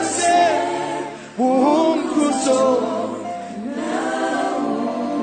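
Gospel choir singing a praise chorus together, one sung phrase tailing off and the next starting about a second and a half in.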